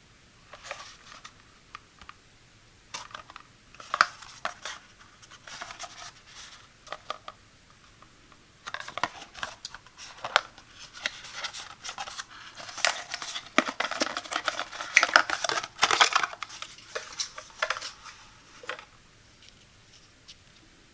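Small paperboard carton handled close to the microphone: scattered taps, scrapes and crinkles as it is turned, its flap opened and the ointment tube slid out. Sparse at first, busiest from about nine seconds in, and settling near the end.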